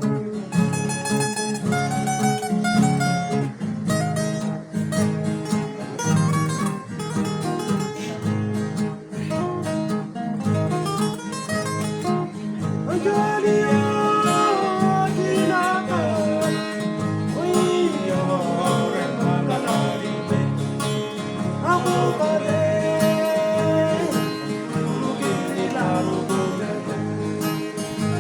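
Papua New Guinea Highlands string band music: acoustic guitars strumming and picking a steady tune. Singing comes in about halfway through.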